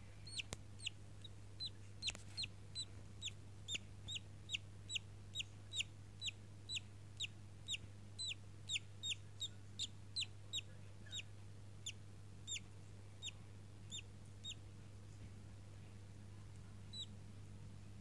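Five-day-old budgerigar chick peeping: a run of short, high, falling cheeps about two to three a second, slowing and stopping about 14 seconds in, with one last peep near the end.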